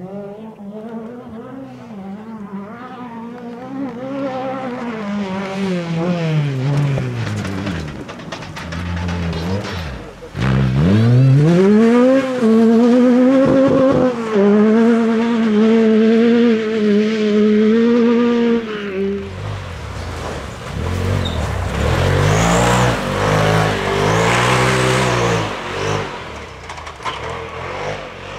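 Off-road rally buggy's engine revving hard on a dirt stage, its pitch climbing and dropping with each gear change. About ten seconds in the revs climb steeply and stay high and wavering for several seconds. Later a second rally car's engine takes over with shorter rises and falls.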